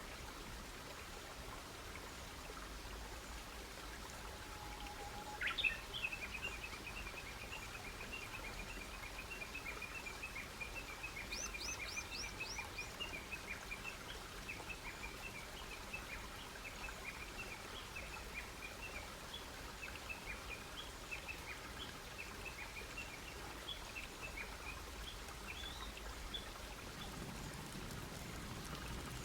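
A bird calling in a long, fast run of short high notes that starts sharply about five seconds in and goes on for some twenty seconds, with a second bird giving a quick group of five falling notes partway through, over a steady low background hush.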